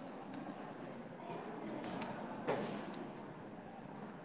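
Chalk scratching across a blackboard as a word is written, faint, with a few sharper taps of the chalk.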